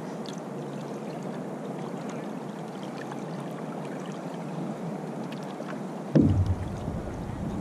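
Steady rush of water along the hull of a two-person outrigger canoe being paddled, with faint light splashes. About six seconds in comes a sudden loud low thump, followed by a low rumble.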